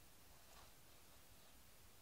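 Near silence: room tone, with one faint soft rustle about half a second in.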